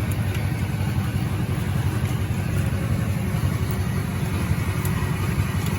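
A motor vehicle's engine running steadily with a deep, even rumble.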